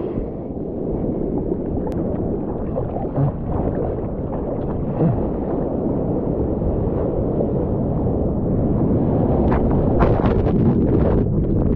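Seawater sloshing and rushing around a surfboard and a camera held right at the surface in whitewater, a steady churning noise. Near the end a wave washes over the camera with a short run of splashes.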